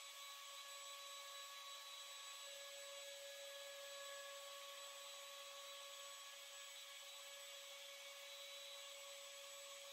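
Trim router running with a steady, faint high whine while it cuts along a pool cue blank turning in a cue lathe.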